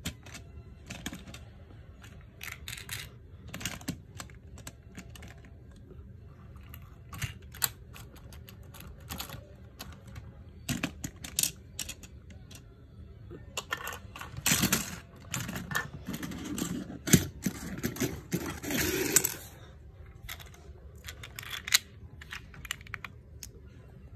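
Plastic Lego pieces clicking and clattering as a hand handles a Lego train wagon: a scattered run of sharp clicks and taps, with a busier, louder stretch of rattling about two-thirds of the way through.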